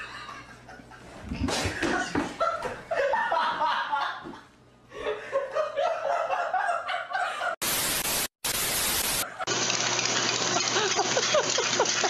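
People laughing and snickering for several seconds. Then come two short bursts of loud hiss, and after them a steady rushing noise.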